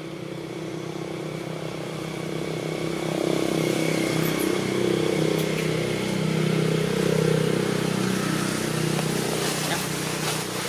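A motor vehicle's engine running steadily, growing louder over the first few seconds and easing off near the end, as it passes by.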